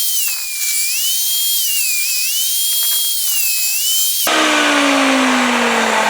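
Table saw running and cutting a bevel with a sled, its whine sagging in pitch as the blade takes the wood. About four seconds in it is switched off and the blade spins down with a falling tone.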